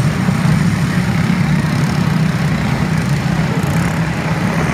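A pack of dirt-track racing karts with Briggs & Stratton engines running flat out together in a race, making a steady, dense drone.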